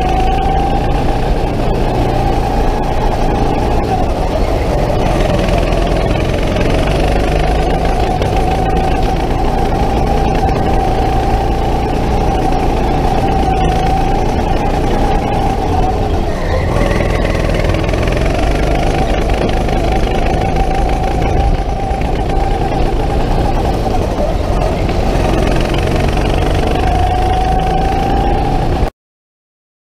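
Racing go-kart's motor running flat out, heard onboard: a loud steady whine that sags and climbs back about three times, then cuts off abruptly near the end.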